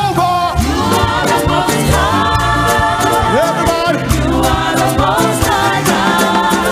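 Live gospel praise music: lead and backing singers singing over a band with a stepping bass line and cymbals.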